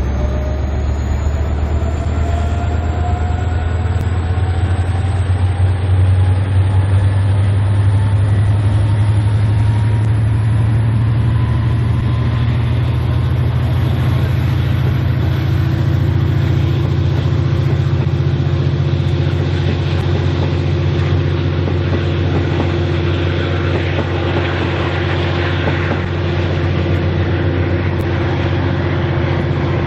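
V/Line A class diesel-electric locomotive running: a loud, steady, deep engine drone, with a whine that rises in pitch through the first half.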